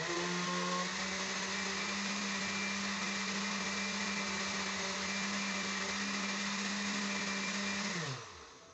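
Oster countertop blender running on its liquefy setting, blending cooked pumpkin, papaya and milk: a loud, steady motor hum with liquid churning. About 8 seconds in it is switched off and the motor winds down with a falling hum.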